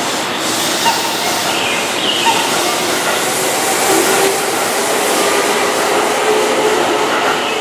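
Keihan Electric Railway electric train running, a loud steady rush of wheel and motor noise with faint whining tones.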